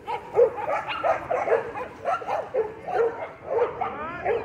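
Dog barking over and over, about two short barks a second, with a drawn-out whining yelp near the end.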